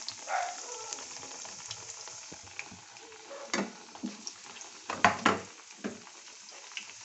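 Potato slices in gram-flour batter deep-frying in hot oil in a steel kadai: a steady crackling sizzle. A few sharp knocks come through it around the middle, the loudest two about five seconds in.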